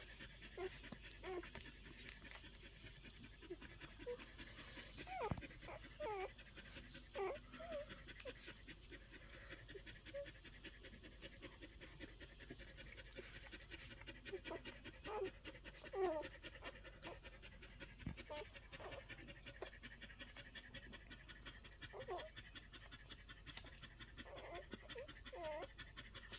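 Week-old collie puppies making short squeaks and whines as they suckle, each call bending up and down in pitch and coming in little clusters every second or two. Faint clicks run underneath.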